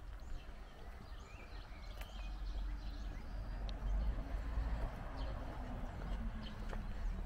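Outdoor ambience: scattered small-bird chirps over a steady low rumble, with a faint low hum that drops in pitch near the end.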